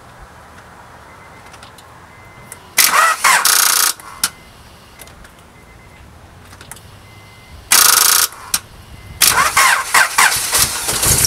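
Honda Accord engine being cranked by its starter on jumper cables from a charged spare battery, its own battery nearly dead from a failed alternator: three separate cranking tries, the last one longest, with the engine starting to fire in quick regular pulses right at the end.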